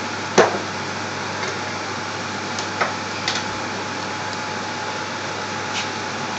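A steady hiss with a faint, even hum beneath it, broken by a sharp click about half a second in and a few faint ticks later.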